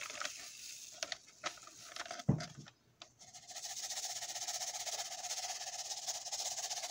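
Powdered shake mix granules in a plastic cup. There are light taps and clicks and one dull thump about two seconds in, then a steady grainy hiss of the granules shifting in the cup.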